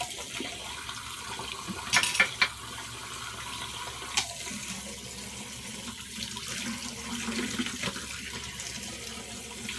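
Bathroom sink tap running steadily while hands are rinsed under it, with a few short sharp sounds about two seconds in and one more near four seconds.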